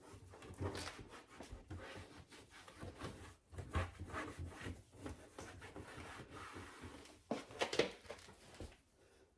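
Hand-cleaning a dishwasher: irregular rubbing and wiping with scattered light knocks, and a few louder knocks near the end.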